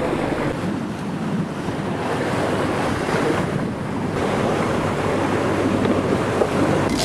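Sea water washing along a boat's hull, with wind noise on the microphone.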